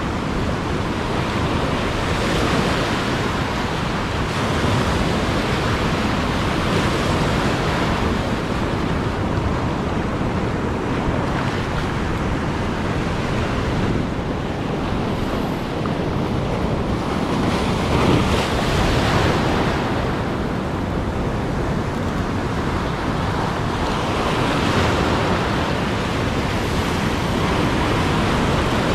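Ocean surf breaking and washing up over the sand: a steady wash of waves that swells and ebbs every few seconds.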